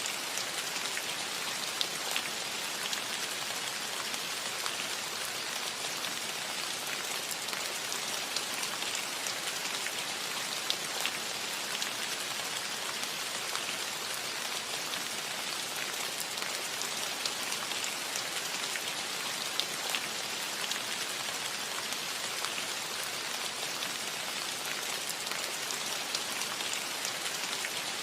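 Steady light rain falling on a metal roof: an even hiss with many individual drops ticking through it.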